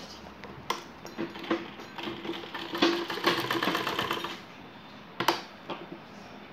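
Domestic sewing machine stitching through cotton fabric in one run of about four seconds, a quick even rattle of the needle, then stopping; a single sharp click follows about a second later.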